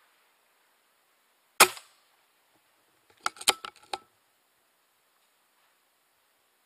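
An air rifle fires a single sharp shot at a rat, followed about a second and a half later by a quick run of clicks.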